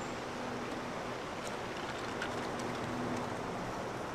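Steady low hiss of outdoor background ambience, with a few faint ticks.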